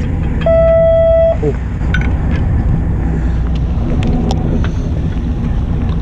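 A fishing boat's engine running with a steady low hum. About half a second in, a single steady beep sounds for about a second, and a few light clicks follow.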